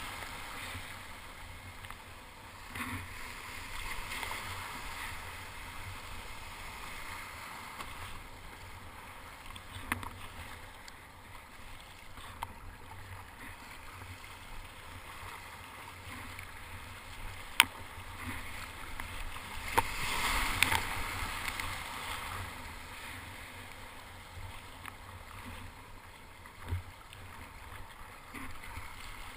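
Splashing water and paddle strokes around a sit-on-top kayak paddled through surf, picked up by a camera mounted on the kayak, with a louder wash of water about twenty seconds in. There are a few sharp knocks, the loudest a little before that wash.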